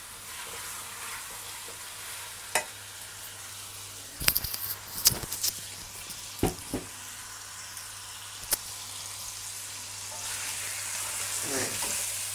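Chicken pieces and sliced onions sizzling as they fry in a stainless steel pot, with a spatula knocking and scraping against the pot: a single knock, then a cluster of several about four to five seconds in, and a few more after. The sizzle grows a little louder near the end.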